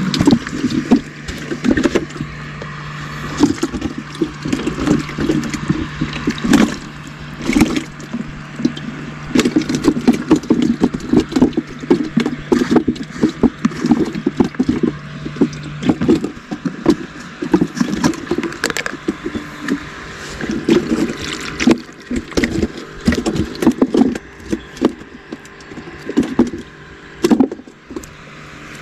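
Water glugging and splashing as it is poured from a plastic jerrycan into a plastic live-bait bucket, with knocks and scrapes from the plastic containers being handled. A steady low hum stops about halfway through.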